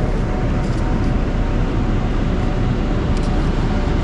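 Steady, loud storm wind and surf noise, heavy in the low end, with the wind buffeting the microphone.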